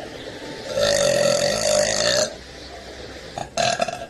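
A woman burping: one long, drawn-out belch starting about a second in and lasting about a second and a half, then a shorter burst near the end.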